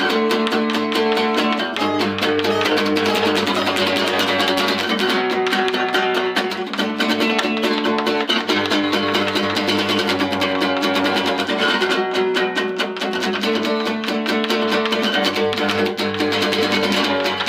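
Acoustic guitar strummed fast and steadily through a chord sequence: an instrumental passage with no singing.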